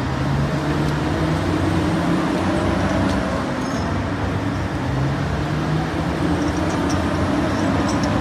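Heavy diesel engine of a large wheel loader running as the machine drives and turns, its note rising and falling a little.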